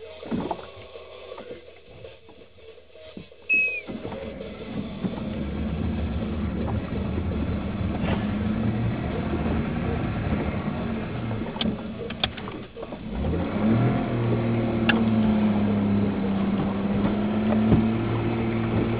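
Car engine starting about four seconds in and running. It revs up with a rising pitch about two-thirds of the way through, then runs on at a steady higher drone, heard from inside the cabin.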